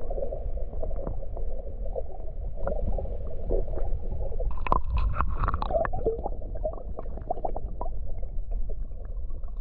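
Water sloshing and gurgling close by, with scattered small knocks and clicks that are busiest about halfway through.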